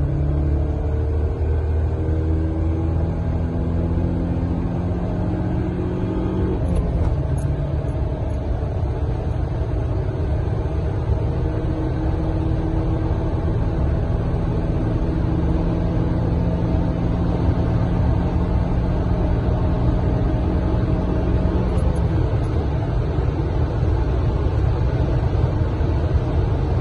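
Audi 80 B4's 2.0-litre four-cylinder engine pulling hard under full acceleration, heard from inside the cabin over road and wind rumble. The engine note climbs slowly and steadily, with one break in it about seven seconds in.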